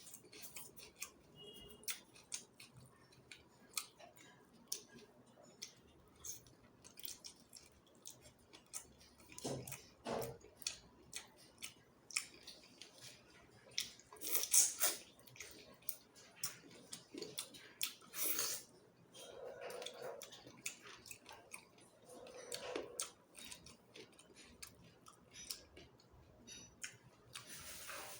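Close-miked chewing of a chicken feet curry meal: rapid wet mouth clicks and crunches, with a few louder crackly crunches around the middle.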